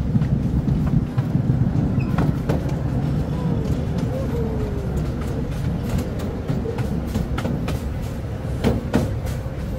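Ride-on miniature railway train rolling along the track: a steady low rumble of the wheels, with irregular sharp clicks that come more often in the second half.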